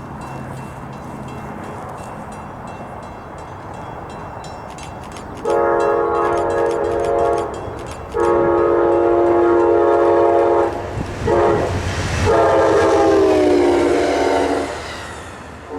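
Locomotive air horn sounding the grade-crossing signal: two long blasts, a short one and a final long one, several tones together as a chord. The last blast drops in pitch as the train passes. Before the horn there is a steady rushing noise of the approaching train.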